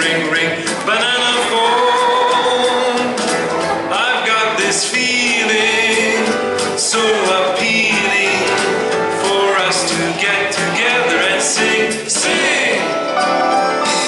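Music with singing: a group of children singing a song together over an accompaniment with a steady beat.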